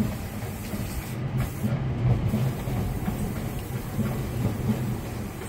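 Strong wind buffeting the microphone high on a tower crane: a steady low rumble with a hiss above it, rising and falling with the gusts.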